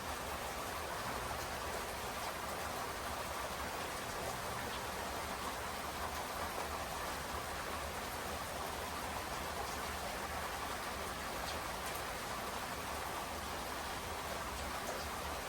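Steady rainfall, a constant even hiss of rain with a few faint individual drop ticks.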